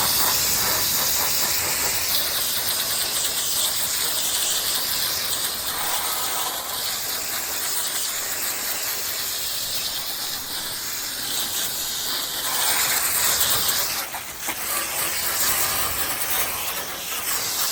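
Garden hose spraying water onto an air-conditioner condenser coil, rinsing off foaming coil cleaner: a steady hiss of spray with a short break about fourteen seconds in.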